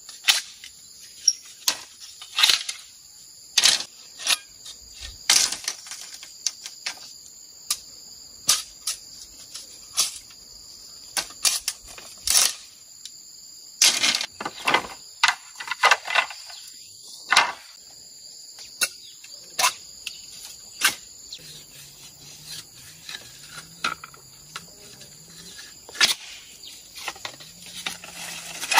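Machete blade striking bamboo poles: irregular sharp chops, roughly one a second, with a quick flurry of strokes around halfway. A steady high insect drone runs underneath.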